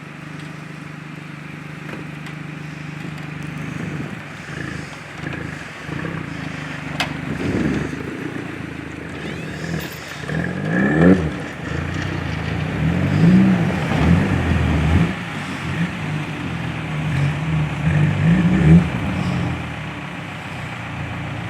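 A motor vehicle engine running, with its pitch rising and falling several times as it revs up and eases off.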